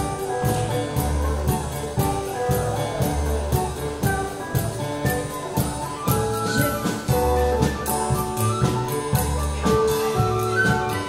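Live contra dance band playing a dance tune with a steady beat for the dancers.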